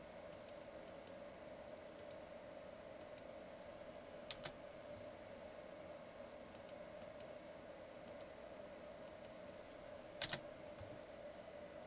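Faint, scattered clicks of a computer mouse and keyboard as objects are selected and a number field is edited, two of them a little louder, about four and ten seconds in, over a steady faint hum.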